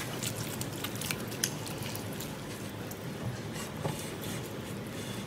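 Hands rubbing soy sauce over a blanched leg of lamb in a ceramic bowl: soft, wet squishing with small scattered clicks.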